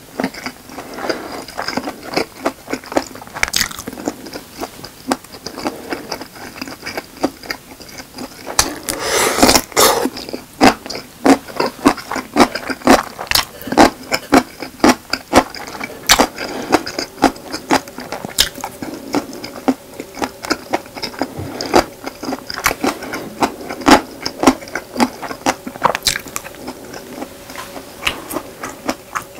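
Close-miked chewing and crunching of spicy squid and cubed radish kimchi, with many sharp crisp crunches and wet mouth clicks. Around nine seconds in there is a longer, louder crunching burst of about a second.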